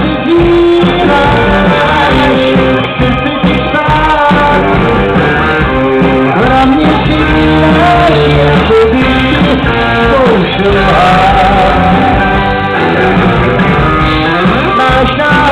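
Rock band playing loudly with electric guitar and a singer.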